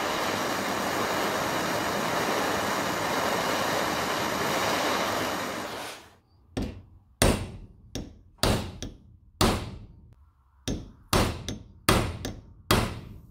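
A gas torch's blue flame hisses steadily for about six seconds, then cuts off. About ten sharp hammer strikes follow at uneven spacing, each ringing briefly.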